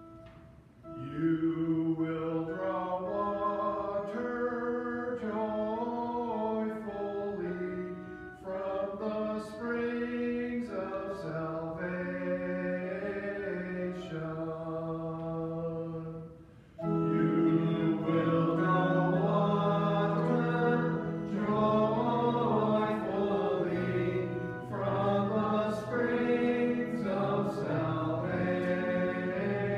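Sung responsorial psalm: voices singing a slow melody over sustained organ chords. It starts about a second in, pauses briefly near the middle, and resumes louder.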